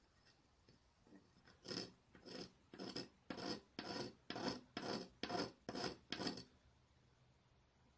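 Dark abrasive stone rasping back and forth over the edges of glass mosaic tiles: about ten short scraping strokes, roughly two a second, starting a couple of seconds in and stopping near the end.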